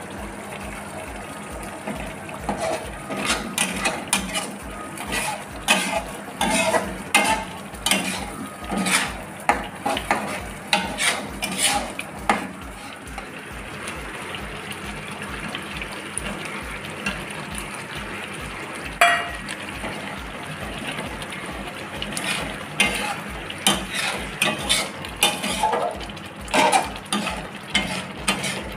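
A metal spatula scrapes and clatters against a metal cooking pan as thick, bubbling curry gravy is stirred, over a light sizzle. The strokes come in quick irregular runs. A quieter spell in the middle is broken by one sharp metallic clink.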